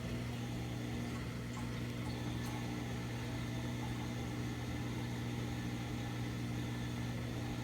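Steady low electric hum of an appliance motor, even throughout with no gurgling or clicks.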